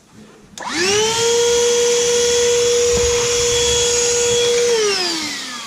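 Vacuum cleaner switched on with a click, its motor whining quickly up to speed and running steadily, then switched off about four and a half seconds in and winding down with a falling whine.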